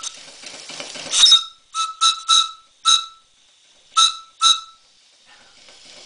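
Brass steam whistle on a PMR model live-steam boiler, blown in seven short toots in quick succession, each a clear single-pitched note. The first is slightly longer, and the last two come after a short pause.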